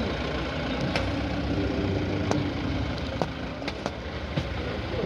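An engine idling steadily, with several light clicks and knocks scattered through it.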